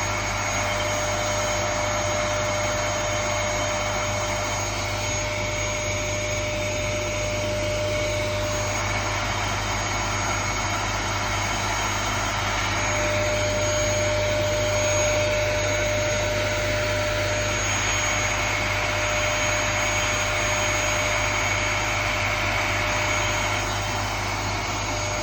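Vacuum cleaner running steadily, a constant motor whine over the rush of air, with slight swells in level.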